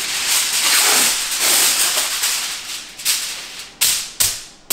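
Aluminum foil crinkling and rustling as a sheet is pulled from the roll and spread over a countertop, ending in a few sharp crackles as it is smoothed down.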